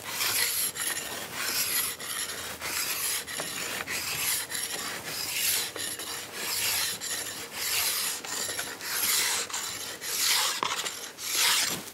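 A second-cut chrome file, set in an 87-degree side-edge file guide, rasping along a ski's steel side edge in repeated strokes, a little more than one a second. This is the second sharpening pass on the edge.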